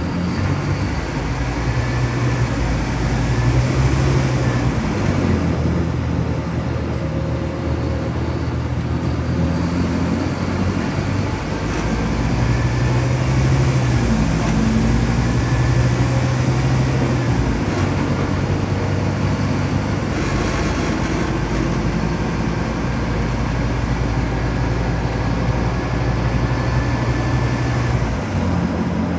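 Scania K360UA articulated bus heard from inside the cabin while driving, the engine pulling hard through two stretches of acceleration. The ZF automatic gearbox gives a loud whine that climbs in pitch with speed and then falls away.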